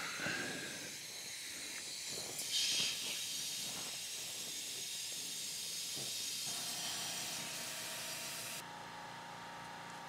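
Compressed air hissing steadily through an air chuck into a Polaris Ranger XP 1000's tire at the valve stem, reinflating it after tire sealant has been added. The hiss is louder for a moment about two and a half seconds in and stops about eight and a half seconds in; a steady hum with a tone comes in about six and a half seconds in.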